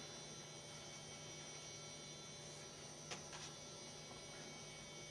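Quiet room tone with a steady low electrical hum, and a faint click about three seconds in.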